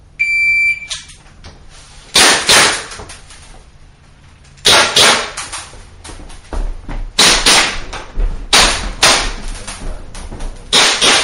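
Electronic shot timer beeps once, then pistol shots are fired in quick pairs (double taps), five pairs with short pauses between them, each shot echoing.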